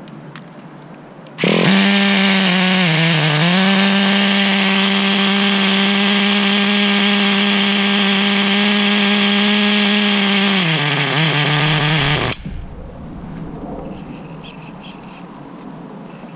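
Traxxas Nitro 4-Tec 3.3's small nitro engine running loud at a high, steady pitch for about eleven seconds, starting suddenly, dipping briefly early on and sagging slightly before cutting off abruptly. It comes while the low-speed needle is being tuned on an engine that will not hold an idle.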